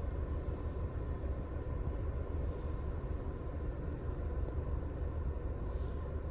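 Steady low rumble inside the car's cabin, with a faint steady hum above it. No music comes from the speakers: the sound system is not working.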